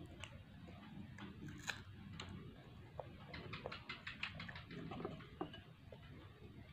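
Faint eating sounds of people chewing soft fruit, with scattered small clicks and a quick run of clicks a little past the middle.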